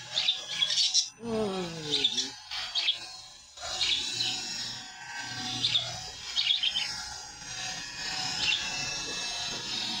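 Budgerigars chirping in short, high chirps scattered throughout, with a lower sound falling in pitch about a second in.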